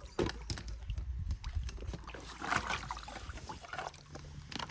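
Water sloshing and splashing in irregular bursts, with small knocks, as toy trains are moved through water.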